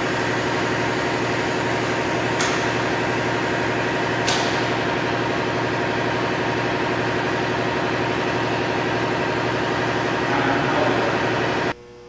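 Steady mechanical drone of the blower pressurizing one side of a steel storm-shelter door in a pressure test, with the door loaded near the test's peak pressure. Two sharp ticks come about two and four seconds in, and the drone cuts off abruptly near the end.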